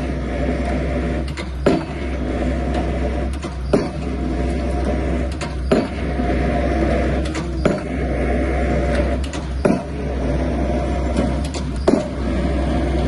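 Pile-driving hammer striking a 30 x 30 cm foundation pile, a sharp blow about every two seconds, over the steady running of the rig's engine.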